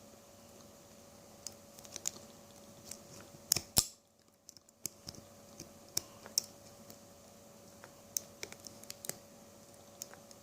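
Lock pick and tension wrench working in a small pin-tumbler padlock: scattered light metallic clicks and scrapes as the pins are lifted and set, the loudest pair of clicks about three and a half seconds in. A faint steady hum runs underneath.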